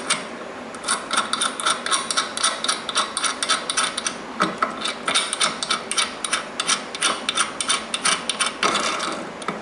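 A 3/8-inch steel nut spun by hand down a long threaded bolt, clicking and rattling on the threads in quick, irregular ticks, several a second.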